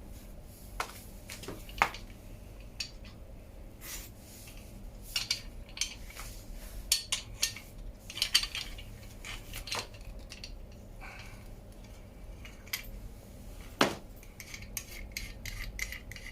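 Irregular light metallic clinks and clicks of steel tools and bicycle crank parts being handled as a crank puller is worked to draw a square-taper crank arm off its spindle. A few sharper clinks stand out, about two seconds in and near the end.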